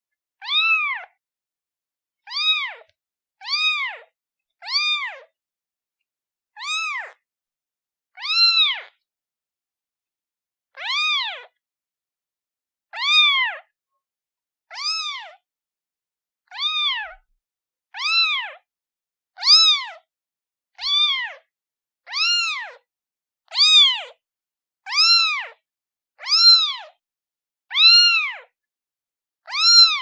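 Kitten meowing over and over: about nineteen short, high meows, each rising and then falling in pitch, with silence between them. The meows come closer together in the second half.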